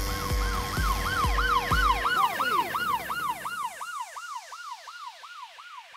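Siren wailing in quick rising-and-falling sweeps, about three a second, fading away toward the end. A low beat runs underneath for the first two seconds.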